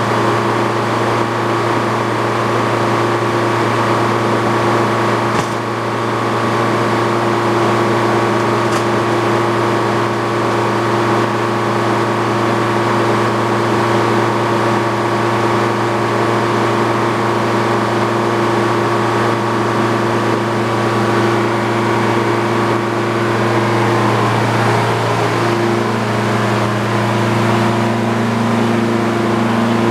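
The engine powering an old Frick sawmill runs steadily with a constant hum, and its note shifts slightly about 24 seconds in.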